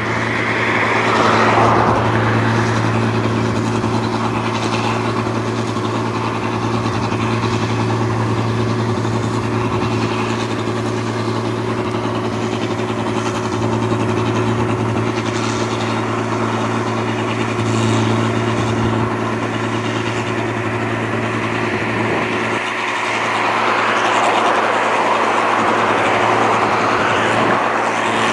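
Rice combine harvester (1545 S) running steadily in the paddy: a constant engine hum under a broad mechanical noise, growing a little louder near the end.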